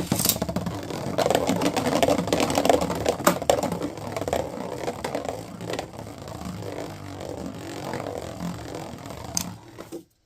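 A 3D-printed Beyblade launched into a plastic stadium and spinning, with a steady scraping rattle of its tip on the stadium floor. It is loudest over the first few seconds, then runs lower until it stops about ten seconds in.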